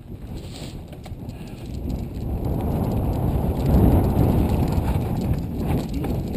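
Mountain bike rolling over a rough dirt trail: a crackly rumble of tyres on the ground, growing louder about two seconds in and loudest around the middle.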